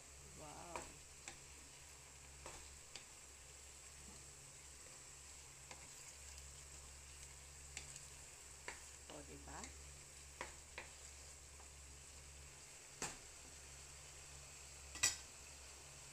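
Diced pork, potato, carrot and ham simmering and sizzling faintly in a pan, with scattered taps and scrapes of a wooden spatula against the pan; a sharp knock near the end is the loudest sound. A steady low hum runs underneath.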